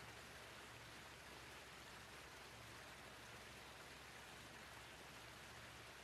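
Faint, steady rush of water falling over a small rocky waterfall cascade.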